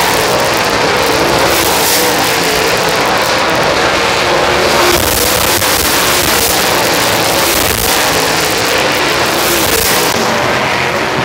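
Dirt late model race cars' V8 engines running hard as they circle a dirt oval, loud and continuous, with the engine notes rising and falling as cars come past.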